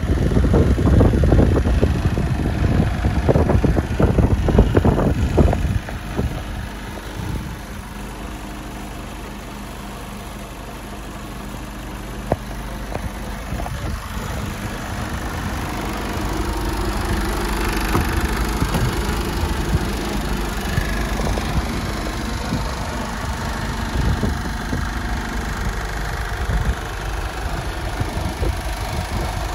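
Mercedes-Benz Actros 2548 tractor unit's 12.8-litre straight-six diesel idling steadily. A louder irregular rumble covers it for the first six seconds.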